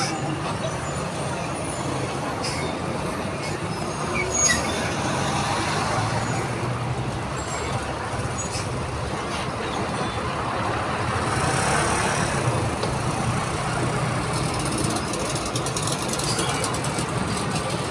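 Engine of a FAW modern-jeepney minibus running steadily as it pulls in close by, over passing road traffic, with a brief swell of noise about two-thirds of the way through.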